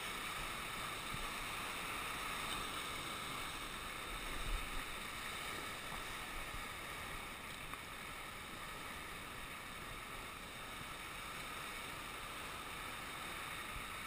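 Sea surf washing over rocky ledges: a steady rushing wash of small waves breaking and draining among the rocks.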